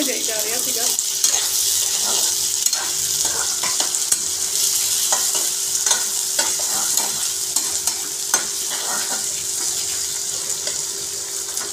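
Chopped onions, tomatoes and green chillies sizzling in hot oil in a steel pan, stirred with a metal spatula that scrapes and taps against the pan now and then. This is the onion-tomato base frying for tadka Maggi.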